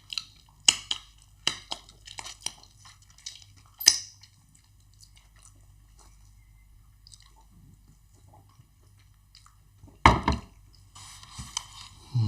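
Close-miked eating of fufu and egusi soup: wet chewing with sharp lip smacks and mouth clicks, then a quiet stretch. A loud knock comes about ten seconds in, followed by a brief noisy rustle.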